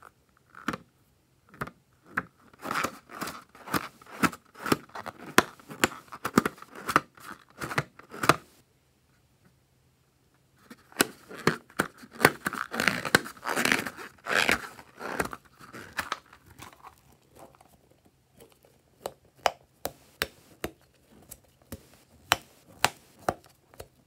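Hands squeezing and kneading a filled rubber balloon: a dense run of small clicks and rubbing noises, stopping for about two seconds in the middle, then thinning to single clicks near the end.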